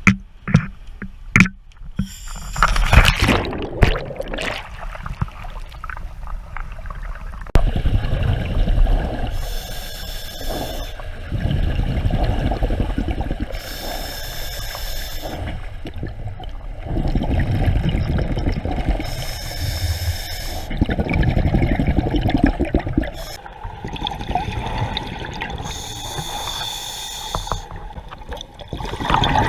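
A scuba diver breathing through a regulator underwater: a hissing inhale through the demand valve, then a rumbling burst of exhaled bubbles, repeating every few seconds. A few sharp knocks come in the first four seconds.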